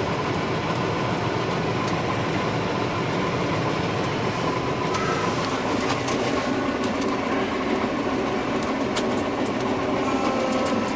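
A John Deere 9600 combine running, with the steady drone of its engine and machinery and a rattle, broken by scattered clicks over the second half.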